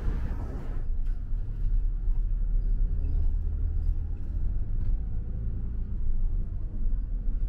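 Low, steady rumble of a city bus's engine and running gear heard from inside the passenger cabin while it drives, after about a second of street traffic noise.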